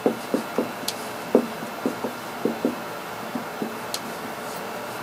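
Whiteboard marker drawing lines on the board: a dozen or so short, irregular taps and knocks as the tip strikes and drags across the surface.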